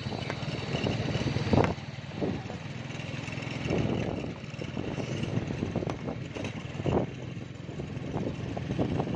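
Motorcycle engine running steadily while riding along a road, with irregular thumps and gusts across it, the loudest about a second and a half in.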